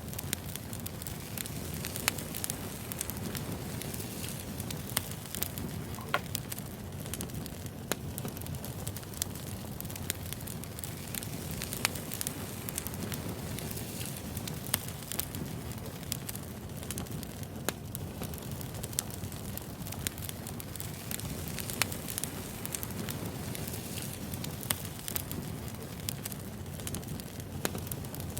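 Wood fire crackling: a steady low rumble of burning logs with frequent, irregular sharp pops and snaps.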